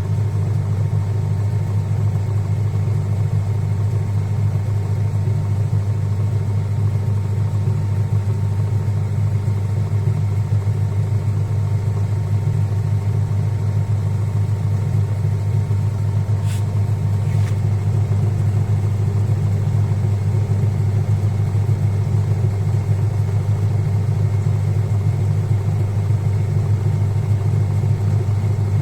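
Sanyo top-loading pulsator washing machine running its spin-dry cycle, a steady low hum from the spinning drum and motor. Two faint ticks come about halfway through.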